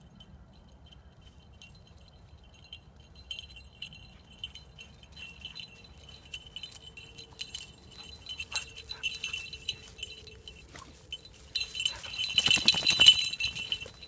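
Falconry bells on a running English Setter jingling, faint at first and growing louder as the dog comes closer, loudest and most rapid about twelve to thirteen seconds in when the dog is close by.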